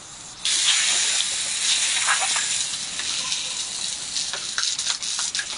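Garden hose water jet spraying onto wet concrete, a steady hiss that starts suddenly about half a second in, with scattered splashes.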